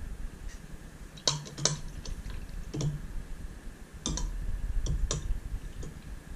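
Light, sharp clicks and taps, about six spread over a few seconds, from small glass cups and a dye bottle knocking together while pigment dye is mixed, with a low steady rumble underneath.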